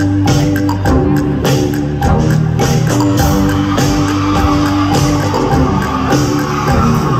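Live band playing an instrumental passage through a concert PA, heard from among the audience: a steady drum beat under bass and held keyboard notes, with no vocals.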